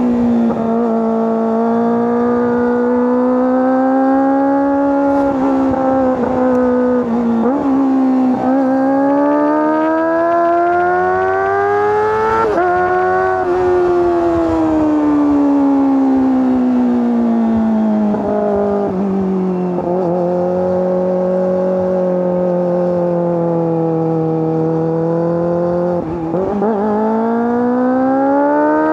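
Kawasaki ZX-25R's 250 cc inline-four engine and exhaust at high revs under riding, a high steady wail. The pitch climbs through the revs and breaks briefly at each gear change. It falls away steadily through the middle, then climbs again near the end.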